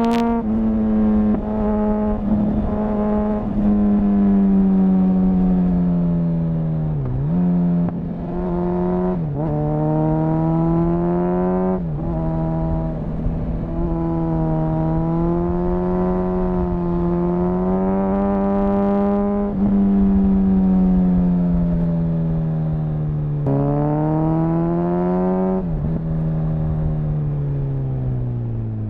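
A 2004 Honda CBR1000RR Fireblade's inline-four engine, restricted to 35 kW, ridden hard and heard from on board. The engine note climbs and sags with the throttle, dips sharply about five times, and falls away steadily near the end.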